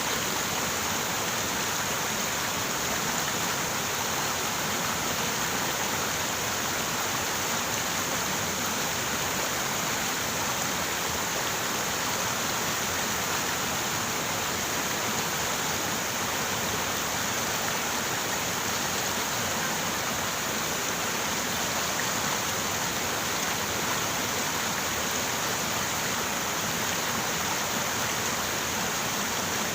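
River water running and rushing, a steady even wash of sound that does not change.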